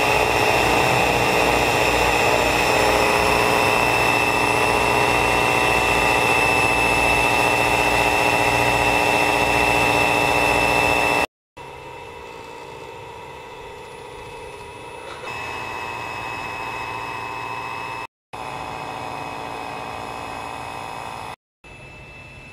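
Electric hand mixer running at a steady whine, its twin beaters whipping egg yolk into foam for egg coffee. About halfway through the sound breaks off abruptly and goes on at a much lower level.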